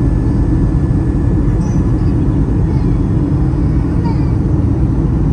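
Steady cabin noise of an Airbus A321 airliner on approach, heard from a window seat over the wing: engine and airflow noise as a constant low rumble with a faint steady whine above it.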